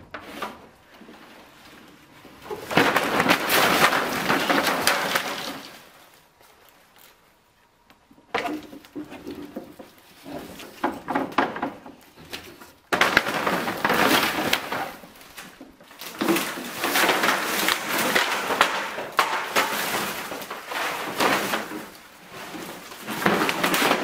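Bamboo roof battens and dry palm-leaf thatch being pulled down and falling onto a heap of dead palm leaves: rustling, crackling and clattering in several long spells, with a quieter lull about six to eight seconds in.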